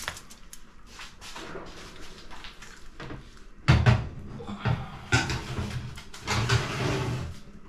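Irregular knocks, thumps and rustling of kitchen handling: a heavy roast suckling pig on a wooden cutting board being shifted over aluminium foil on the counter. The knocks are light and clicky at first, then heavier, deeper thumps come from about four seconds in.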